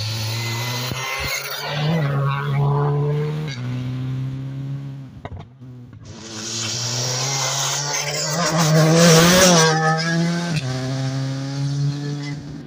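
Rally cars at high revs on an asphalt stage. One car goes by with a couple of gear changes. After a brief break a second car comes through, loudest about nine seconds in, its pitch dropping with a gear change shortly after.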